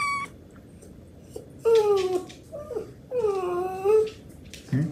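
Three drawn-out whining calls from a pet, coming over about two and a half seconds. The first falls in pitch, the second is short, and the last and longest dips and then rises.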